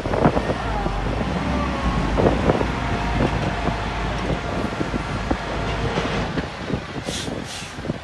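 Heavy earthmoving machinery at work: a diesel engine running with a steady low rumble under scattered metallic clanks and knocks and faint squeals. Two short hisses come near the end.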